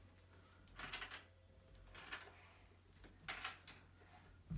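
Faint scraping clicks, four of them about a second apart, as a nut is hand-tightened on an IKEA Vimle sofa's wooden frame with the small supplied nut-driver that fits over the nut.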